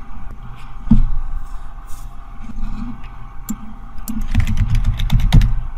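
Computer keyboard typing and mouse clicks in scattered taps, with a dull low thump about a second in and a low rumble near the end, over a faint steady hum.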